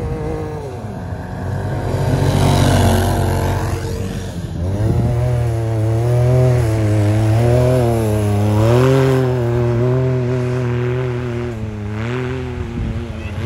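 Can-Am side-by-side engine revving as it ploughs through deep snow, the pitch rising and falling again and again, with a rush of noise around two to four seconds in.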